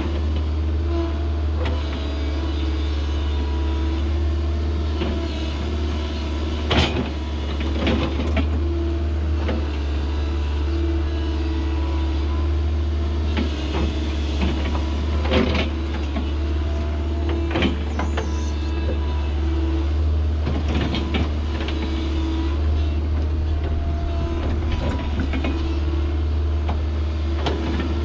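Kobelco SK160 excavator's diesel engine running steadily under work, with scattered knocks and scrapes as the bucket breaks up a frozen pile of dirt, about half a dozen of them sharper than the rest.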